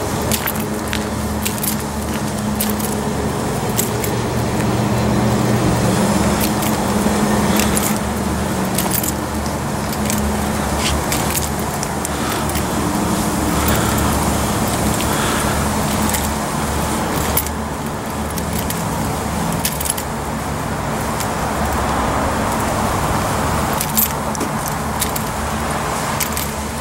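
Keys jangling in irregular clinks while someone walks, over a steady low mechanical hum.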